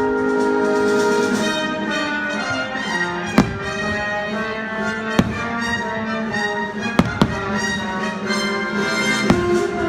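Orchestral fireworks-show soundtrack with brass and strings, played over outdoor loudspeakers. Sharp firework bangs cut through it five times, two of them close together about seven seconds in.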